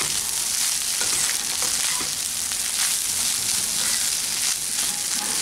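Egg, potato and onion fry sizzling in a non-stick kadai while a spatula stirs and scrapes it around the pan, the fry nearly done. The sizzle is a steady hiss.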